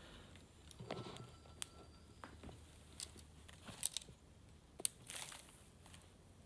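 Packaging being handled during an unboxing: a few brief crinkling rustles with several sharp clicks and taps in between.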